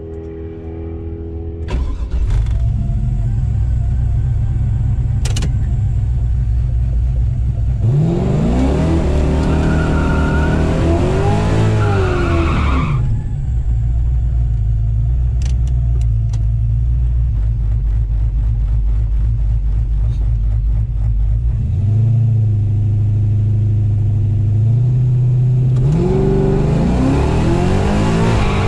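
Car engines at a drag strip, running with a steady low rumble. The revs rise and fall about eight seconds in, step up again a little past twenty seconds, and climb again near the end.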